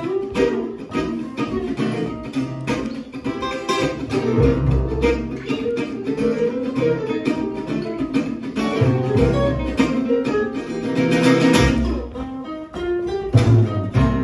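Gypsy jazz played live on two acoustic guitars, a ukulele and an upright double bass: steady strummed rhythm chords with a melody line on top and plucked bass notes underneath.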